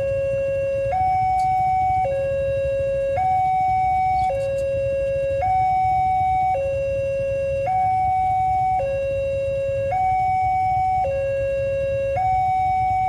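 Electronic railway level-crossing alarm sounding a steady two-tone hi-lo warning, the higher and lower tones each held about a second in turn, signalling that a train is approaching and the gate is closed. A low rumble runs underneath.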